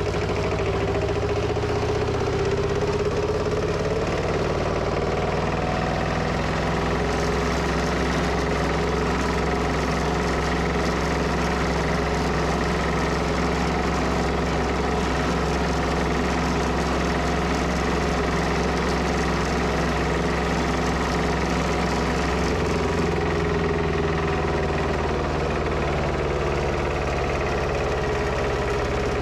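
The Lanz Alldog A 1806's two-cylinder diesel engine running steadily as the tractor drives along, heard from the driver's seat. Its note shifts slightly about three-quarters of the way in.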